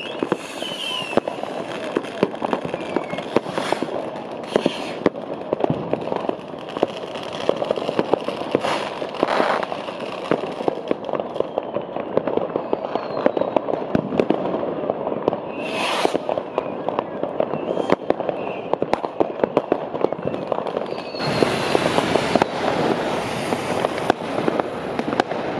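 Many consumer fireworks and firecrackers going off at once: a continuous rattle of bangs and crackling, with a few short descending whistles. It grows louder and denser near the end.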